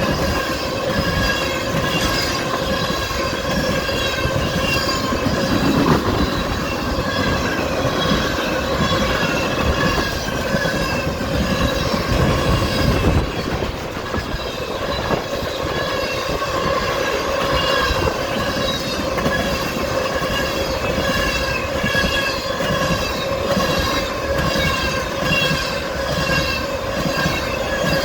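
Freight train cars rolling past close by, wheels clicking over rail joints, with a steady high squeal from the wheels on the rails.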